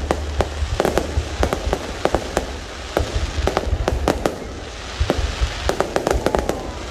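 Aerial fireworks display: a rapid barrage of shell bursts and sharp bangs, some in quick clusters. The bangs thin out briefly a little past the middle, then come thick again.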